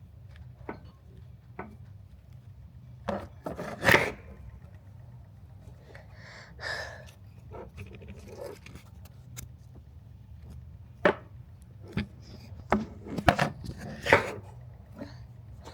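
Irregular knocks and clicks, such as objects being handled or tapped, over a low steady hum. One loud knock comes about four seconds in and a cluster of them around eleven to fourteen seconds.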